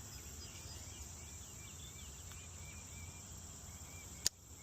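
Insects chirping and droning steadily, a quick train of short high chirps over a thin high hiss, with a single sharp click about four seconds in.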